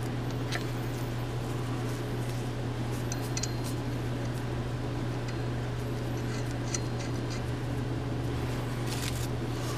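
A steady low hum, with a few faint metallic clicks and taps as the cap bolts of a CB Performance I-beam connecting rod are threaded on by hand at a crankshaft journal.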